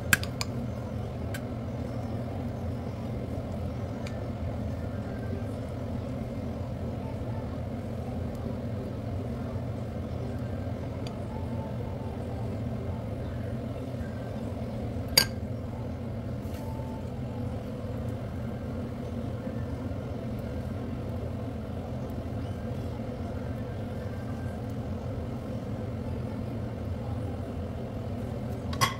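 Steady low hum with a few sharp clinks of kitchenware: one at the start, a louder one about halfway through, and one near the end.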